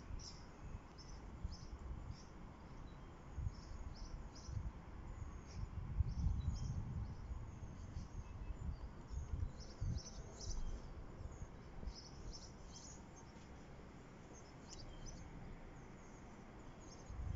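Small birds chirping in short, high, irregular calls over faint outdoor background noise. Low rumbles on the microphone come and go, the loudest about six seconds in.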